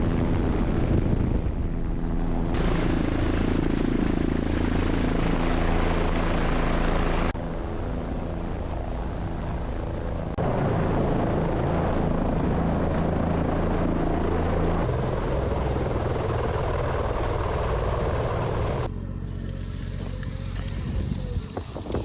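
Helicopter in flight, its rotor and turbine running steadily, with the sound changing abruptly every few seconds between shots.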